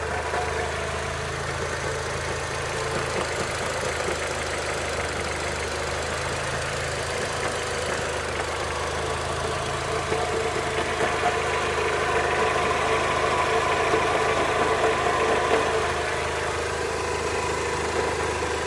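Mitsubishi Lancer IX 2.0 idling with a knock from a worn gearbox input shaft bearing. It runs steadily and is a little louder for a few seconds past the middle.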